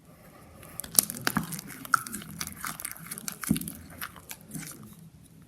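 Sticky homemade butter slime being handled and squeezed by hand, making irregular small wet clicks and crackles.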